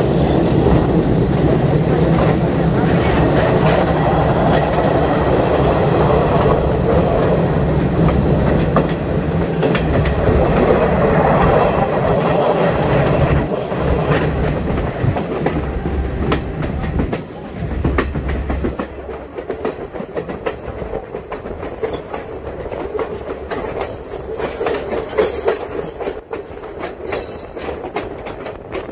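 Diesel train running along the track: a steady rumble with a low engine hum, and the wheels clacking over the rail joints. About two-thirds of the way through the rumble drops and the wheel clicks stand out more.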